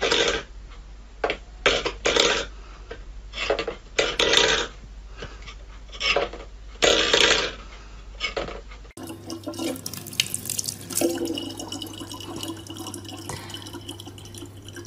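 A stainless steel pet bowl knocked about by a cat's paw on a wooden floor, clattering in about six short bursts. About nine seconds in, this gives way to a thin stream of tap water running steadily into a plastic bottle.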